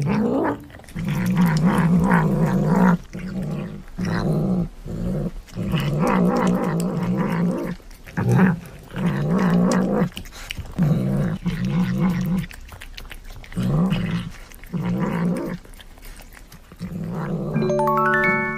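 Domestic tabby cat growling while it eats: a low, steady growl in repeated spells of one to two seconds, broken by short pauses.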